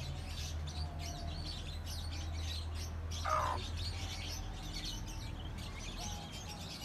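Flock of guinea fowl keets peeping in many short, high chirps, with one louder, lower call a little past three seconds in.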